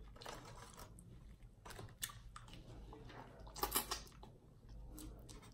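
Faint, scattered clicks and light smacks of fingers and long nails picking seafood out of an aluminium foil pan and putting it to the mouth, with a quick cluster of clicks about three and a half seconds in.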